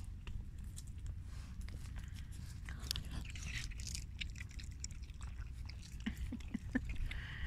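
Young raccoon chewing grapes up close: an irregular run of small clicks and smacks from its mouth.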